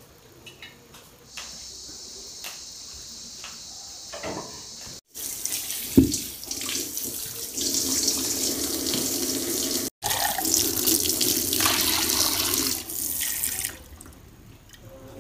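Tap water pouring into a stone mortar and splashing into a steel sink as the mortar is rinsed by hand, with one sharp knock about six seconds in. The running water stops shortly before the end.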